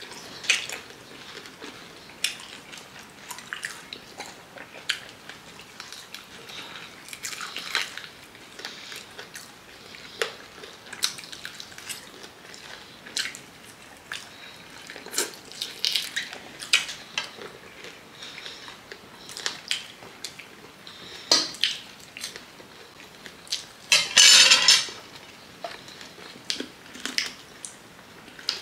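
Eating sounds from two people eating chicken feet and fries: chewing and mouth smacks mixed with forks clicking on plates, a run of short, irregular clicks. About three-quarters of the way through comes a louder noisy burst lasting about a second.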